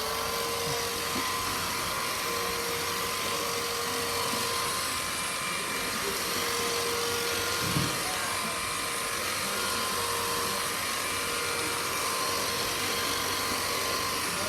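Beldray 22.2V cordless two-in-one stick vacuum running steadily at full power: an even motor whine over a rushing hiss of air. One brief knock about halfway through.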